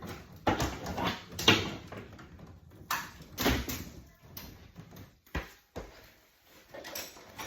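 Electrical wire being stripped by hand: a series of irregular scraping strokes of the stripping tool on the insulation, with a sharp click a little past five seconds in.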